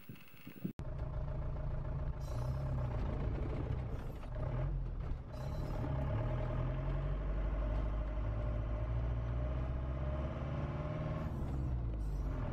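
Camper van's engine and road noise heard from inside the cab while driving, a steady low drone that starts about a second in.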